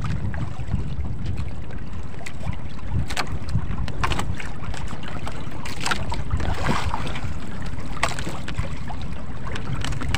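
Wind buffeting the microphone over water sloshing against a small outrigger boat's hull, a steady low rumble, with a few light knocks scattered through.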